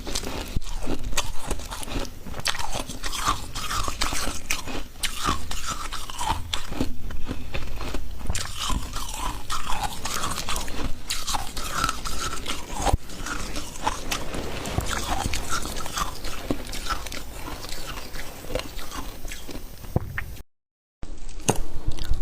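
Freezer frost being bitten and chewed close to the microphone: dense, irregular crunching with a short break near the end.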